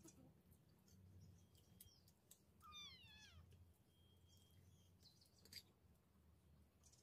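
A cat meows once about three seconds in, a single drawn-out call falling in pitch. Faint light clicks sound around it.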